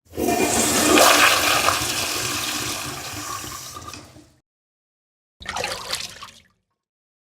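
A toilet flushing: a sudden rush of water that peaks at about a second and then drains away, dying out after about four seconds. About a second later a short, separate burst of water sound follows.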